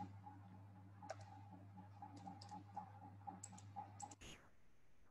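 Faint, scattered keystrokes on a computer keyboard, a few quick taps at a time, over a steady low electrical hum that drops out near the end.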